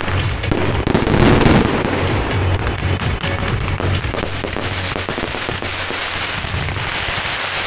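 Firecrackers going off in a dense, unbroken crackle of rapid bangs, loudest about a second in.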